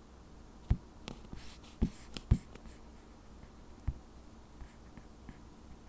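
Handling noises at a desk: a handful of soft knocks and clicks spread out over several seconds, with a brief rustle about one and a half to two seconds in.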